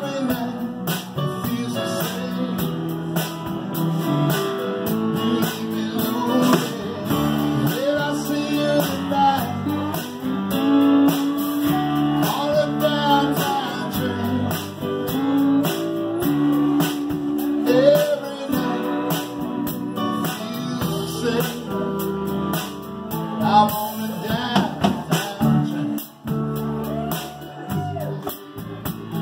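Live rock band playing an instrumental passage: strummed acoustic guitar, keyboard, bass and drums with cymbals, and a lead line that keeps bending up into its notes.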